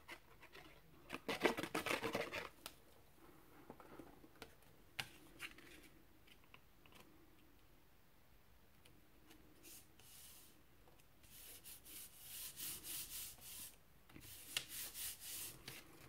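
Faint paper rustle and rubbing: a glued, embossed card panel is laid onto a white base card about a second in, then hands rub and press it flat in a run of quick scratchy strokes over the last five seconds.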